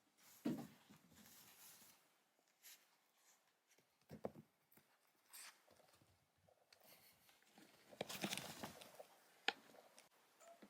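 Quiet room with scattered faint knocks and rustling, and a single sharp click near the end.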